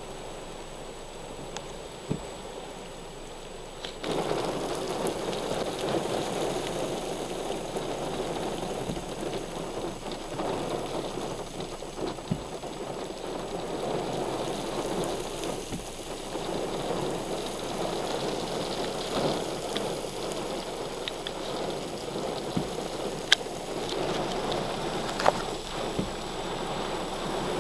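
Heavy rain pouring onto a paved parking lot: a steady dense hiss that gets clearly louder about four seconds in, with a few sharp taps scattered through.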